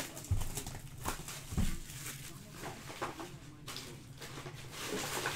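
Cellophane shrink wrap crinkling as it is peeled and torn off a trading card box, with a sharp snap at the start and a couple of soft knocks as the box is handled.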